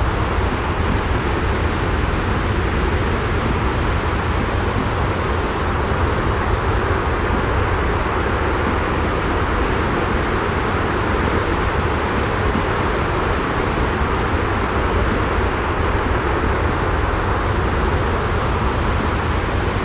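Steady white noise of a jet airliner's cabin drone: an unbroken low rumble with a hiss above it, holding level throughout.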